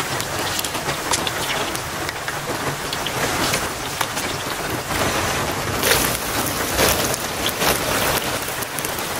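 Tortilla strips frying in hot oil in a clay cazuela, a dense crackling sizzle that swells about six seconds in, with rain falling steadily.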